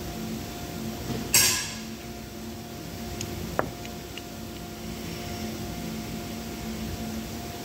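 Parts of a disassembled pneumatic impact wrench being handled by hand: a short, loud noisy rush about a second and a half in, then a single sharp click with a brief ring a couple of seconds later, over a steady hum.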